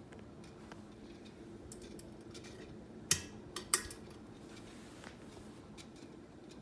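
SMC UF42 ceiling fan running with a steady low motor hum and irregular small metallic clicks, with two sharper clinks about three seconds in. The noise comes from the motor's badly worn bearings, which the owner calls "so bad".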